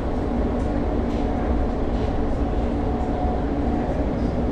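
London Overground Class 710 electric train running along the track, heard from inside the carriage: a steady rumble with a steady hum running through it.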